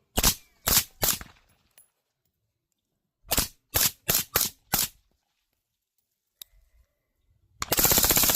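Rifle fire from a 5.56 AR-pattern rifle with a Ridgeback Defense RHODIE 6: three quick shots, then a string of five, then a very fast rapid-fire burst near the end.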